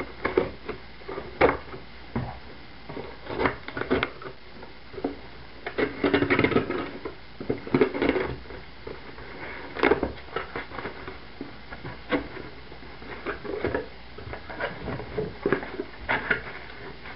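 A cardboard shipping box being opened and its contents handled: irregular knocks, scrapes and rustles of cardboard and packing, busiest about six to eight seconds in.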